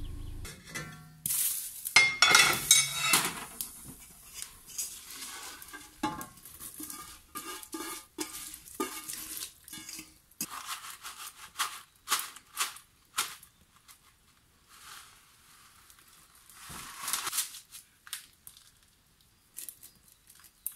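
Spruce shoots being tipped into a pot on a wood-burning stove and stirred: a busy run of knocks, scrapes and clinks of pot and utensils with patches of rustling and sizzling, loudest about two seconds in.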